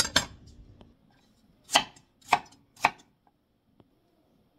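Chef's knife chopping a chayote into chunks on a wooden cutting board: two knocks at the start, then three sharp chops about half a second apart in the middle.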